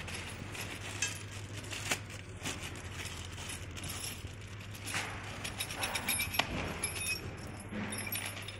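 Small metal hardware (bolts and a hex key) clinking and jingling irregularly as it is handled, with a few sharper clinks, over a steady low hum.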